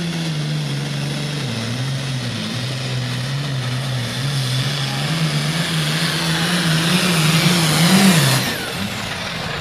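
Super Farm class pulling tractor's diesel engine running flat out under load as it drags a weight-transfer sled: a steady, loud engine note with a high hiss building over the run. About eight and a half seconds in the sound falls away sharply as the pull ends.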